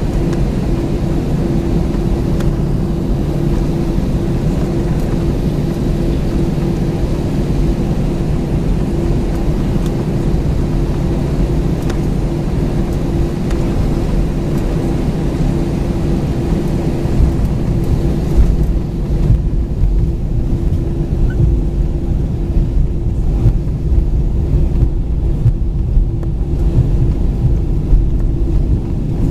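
Cabin noise of an Airbus A320-214 taxiing, heard from a window seat over the wing. The CFM56-5B engines are at idle and the wheels roll on the pavement, making a steady low rumble with a steady hum running through it. About two-thirds of the way in, the rumble grows a little heavier and the hiss above it fades.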